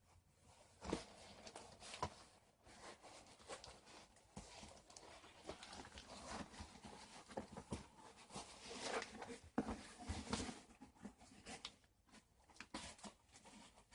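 A damaged cardboard shipping box being handled and turned: faint rustling and scraping with scattered light taps and knocks.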